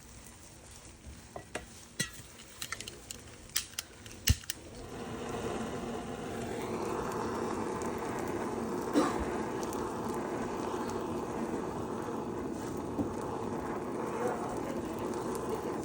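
A few sharp clicks and knocks of kitchen utensils, then, from about five seconds in, a steady sizzle of a sandwich frying in a pan.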